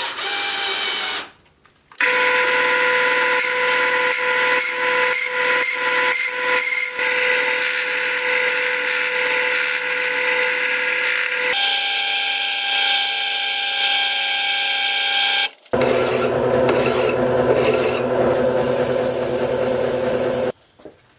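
Metal lathe turning a taper on a silver-steel shaft with a carbide insert tool: the cut gives a steady whine of several pitches, broken by short gaps. Near the end the spinning part is sanded with abrasive paper, a rougher hiss.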